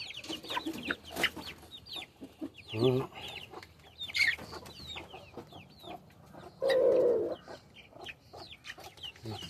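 Backyard chickens clucking, with short high chirps scattered throughout and a louder call of about half a second near seven seconds in.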